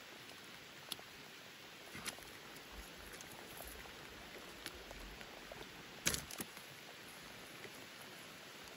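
Steady patter of rain falling on lake water and the wooden boat. A few light clicks and knocks come from handling the net and fish, with a sharper cluster about six seconds in.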